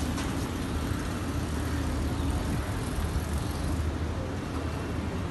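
Steady low rumble of outdoor background noise, even and unbroken.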